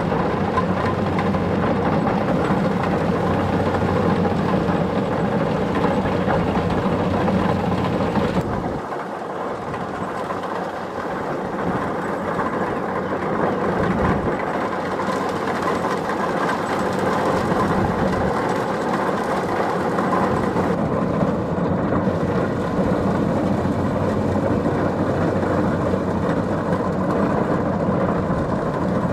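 Kubota DC-70 Plus rice combine harvester running steadily under load, engine and threshing machinery together; the sound drops a little about a third of the way in and builds back up a few seconds later.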